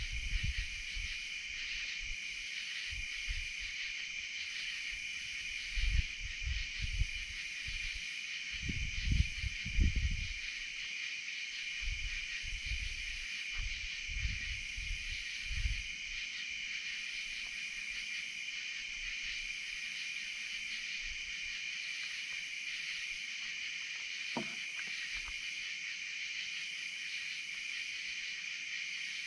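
Night insect chorus: a steady high chirring with a higher layer that pulses about every two seconds. In the first half there are several bursts of low rumbling.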